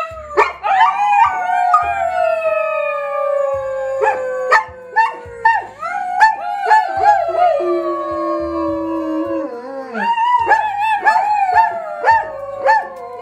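A dog howling: long, drawn-out howls that slide slowly down in pitch, broken by short yips, with a fresh howl starting about ten seconds in.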